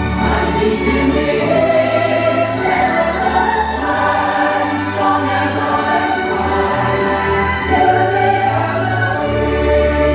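Music: a choir singing over orchestral backing.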